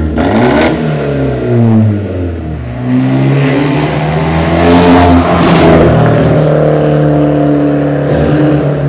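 Fiat 124 Spider Abarth's 1.4-litre turbocharged four-cylinder engine revving up and down, then pulling through a long steady acceleration from about three seconds in, with two sharp cracks near the middle.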